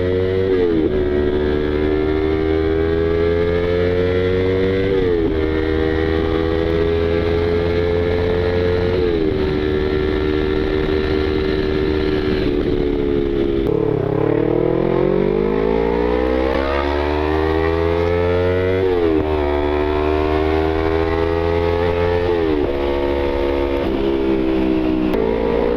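Yamaha YZF-R25 parallel-twin engine pulling hard while riding, its pitch climbing steadily and dropping sharply at each upshift, about every four seconds. About halfway through the revs fall low and then climb again in one long pull before the upshifts resume.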